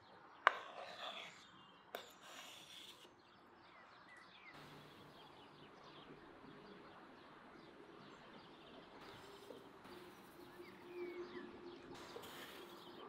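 About half a second in, a sharp knock and a brief rustle of chopped onion sliding off a wooden board onto minced meat, with a second smaller knock a moment later. After that, a faint steady outdoor background with a few scattered bird chirps.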